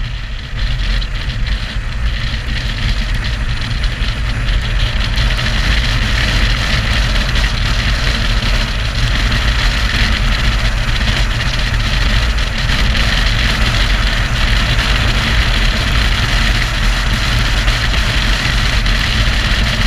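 Motorcycle riding at road speed on a wet road: wind rushing over the microphone with the engine and tyre hiss underneath. It builds over the first few seconds as the bike speeds up, then holds steady.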